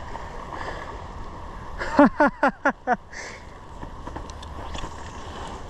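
Steady rush of flowing river water. About two seconds in, a person laughs briefly, about five quick falling syllables.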